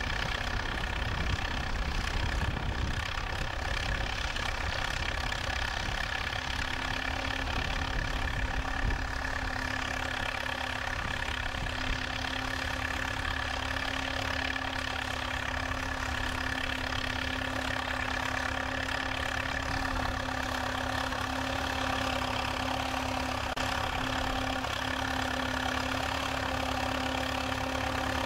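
Vintage tractor engine running steadily while pulling a plough through the soil. A steady low tone joins the engine sound about six seconds in.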